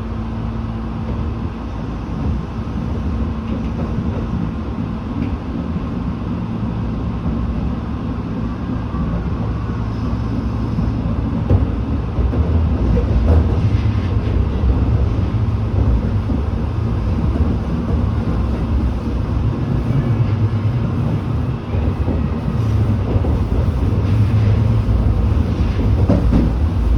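Tobu 8000-series electric train running along the track, heard from on board: a steady low rumble of motors and wheels that grows louder about halfway through, with a few short knocks from the rails.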